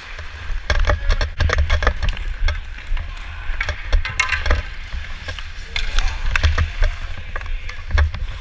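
Hockey skate blades scraping and carving on ice, with sharp clacks of sticks and pucks, heard from a camera worn by a skating player. A low rumble of wind buffets the microphone throughout.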